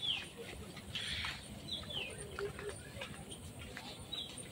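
Birds giving a few short chirps, each falling in pitch, over a low background rumble.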